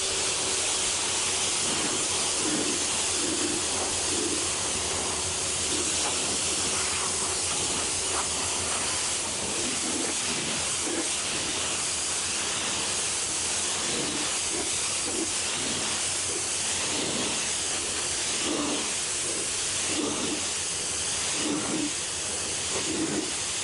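Hose spray nozzle jetting water onto a fibreglass boat deck, a steady hiss of spray while dust is being washed off.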